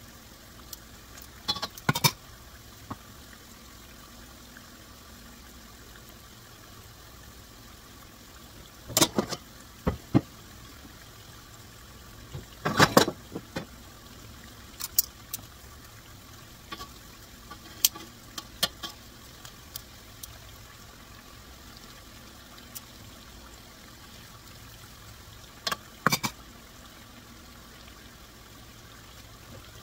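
Gram-flour pakoras frying in hot oil in a pan: a steady sizzle, broken now and then by sharp clicks and pops, a few of them in quick clusters.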